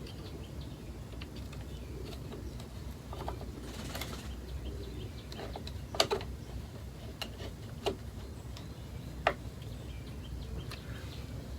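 A few sharp clicks and taps of hand work on the gear-oil pump's valve and fittings, with a brief swish about four seconds in, over a low steady hum.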